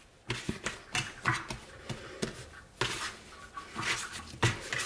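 Hands squeezing, tearing and patting soft bread dough in a metal baking tray: irregular soft squishes and pats, about a dozen.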